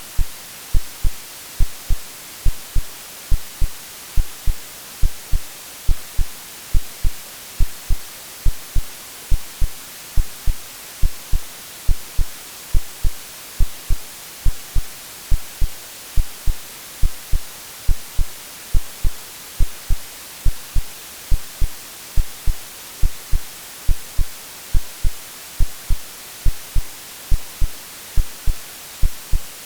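AI-generated white noise, a steady hiss strongest in the highs, under a continuous regular heartbeat of low, soft thumps, mixed as a womb-like soothing sound for settling a baby to sleep.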